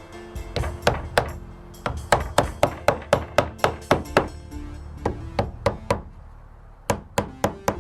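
Hammer driving nails into a wooden cant strip on a roof deck: runs of quick, sharp blows, about five a second, with short pauses between the runs.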